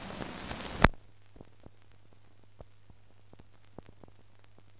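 Surface hiss of an old optical film soundtrack, cut off by a sharp pop just under a second in. Then faint scattered crackles and clicks over a low steady hum as the blank film leader runs.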